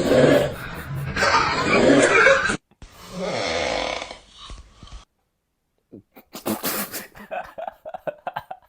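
A person snoring: loud, rasping snores that cut off abruptly, then one more long snore. Music with a quick rhythm starts about six seconds in.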